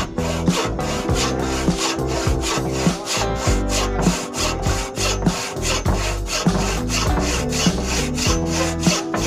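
Hand sawing through a wooden board with a wooden frame saw, the blade rasping on each stroke at about two strokes a second.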